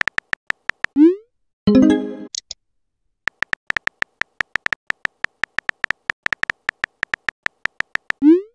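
Chat-app sound effects. A rapid run of short electronic key-tap ticks as a message is typed, a quick rising swoosh as a message is sent, and a brief chime as an incoming reply arrives.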